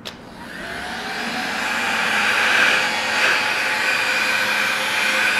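Craftsman heat gun switched on with a click, its fan spinning up over the first second or two and then blowing steadily, heating a scooter's rear driven pulley.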